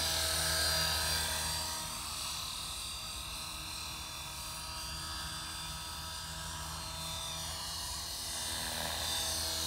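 Electric 450-size radio-controlled Airwolf scale helicopter in flight, its motor and rotors making a steady whine. It fades a little after about two seconds and builds again near the end.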